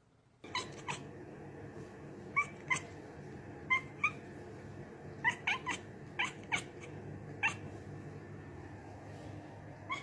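Cat making short, high chirping calls, mostly in quick pairs, about a dozen in all, over a steady low background hum.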